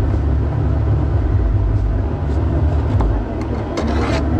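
Steady, loud, low mechanical rumble, like a running motor or engine. Near the end come a few faint taps of a knife slicing papaya on a plastic cutting board.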